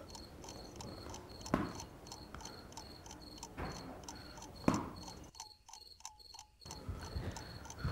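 Crickets chirping faintly in a steady pulsing rhythm, about four chirps a second, with a few soft knocks now and then.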